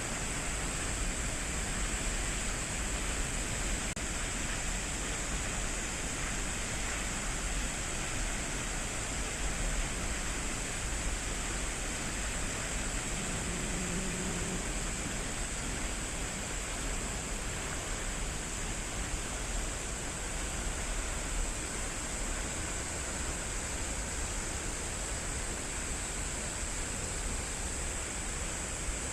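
Falling water of a waterfall, a steady, unbroken rushing with no rhythm or pauses.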